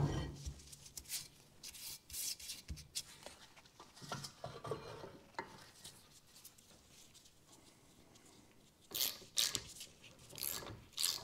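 A BMW E46 rear brake disc is handled and slid onto the wheel hub, with a thump at the start and light metal scrapes and clicks. Near the end come a few sharp scraping strokes, about two a second, as a tool is worked through the disc to the handbrake adjuster.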